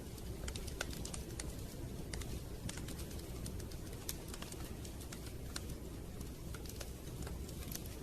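Wood fire crackling, with irregular sharp pops and snaps, several a second, over a steady low rumble.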